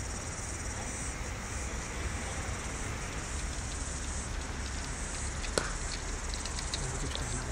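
Outdoor ambience of a steady high insect buzz over a low rumble. About five and a half seconds in, a single sharp crack of a cricket bat striking a ball in the nets, followed by a few faint ticks.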